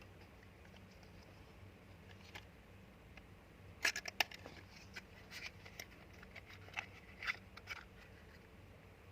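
Handling noises: a quick cluster of sharp clicks and taps about four seconds in, then scattered lighter clicks and rustles, over a faint steady low hum.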